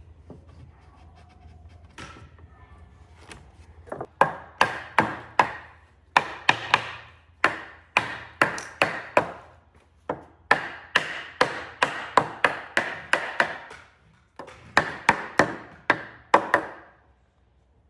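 Repeated hammer blows on wood, struck in quick runs of about three a second with short pauses between the runs.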